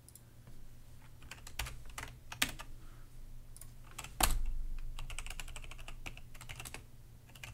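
Typing on a computer keyboard: scattered single keystrokes, one heavier knock about four seconds in, then a quick run of keys near the end.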